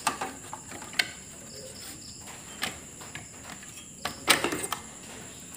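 Clicks and knocks of an air conditioner's circuit board and its plastic bracket being handled and set back into the unit, with a louder cluster of knocks about four seconds in, over a steady high-pitched whine.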